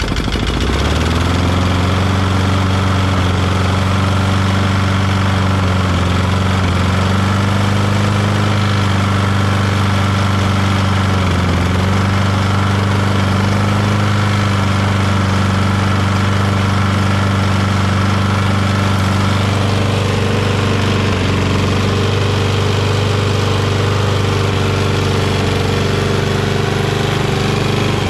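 Kohler XT675 single-cylinder engine on a Toro push mower running steadily just after starting, while its engine speed is being adjusted at the carburetor linkage because the RPM seemed low. The pitch dips briefly twice and shifts about two-thirds of the way through.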